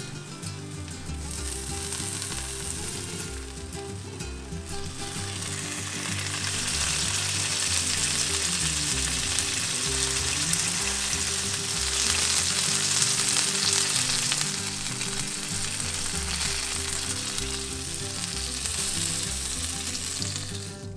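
Oil and melting cheese sizzling on a hot comal under folded corn-tortilla shrimp tacos. The sizzle grows louder about six seconds in.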